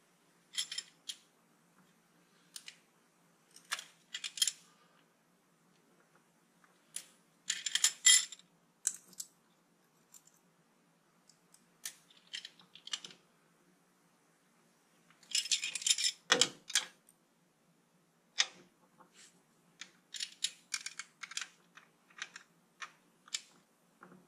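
Hand tools clinking on the rocker gear of a Land Rover 2.25-litre diesel: a ring spanner and screwdriver working a rocker arm's adjuster and lock nut while the valve clearance is set. Irregular bursts of light metallic clicks and clinks, the loudest clusters about eight seconds in and around sixteen seconds.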